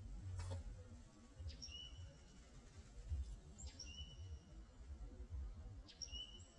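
A bird calling three times, about two seconds apart, each call a short high whistle held briefly. The calls are faint over a low, uneven rumble.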